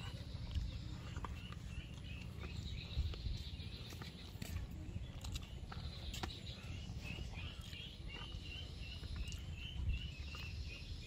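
Outdoor ambience under a steady low rumble. A bird repeats short, high chirps, about three a second, in runs near the start and again through the second half. Scattered faint clicks are heard throughout.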